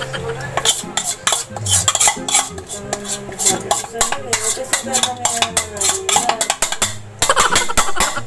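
Metal kitchen utensils clinking and scraping against mixing bowls in many quick, irregular taps as batter is scraped out and mixed.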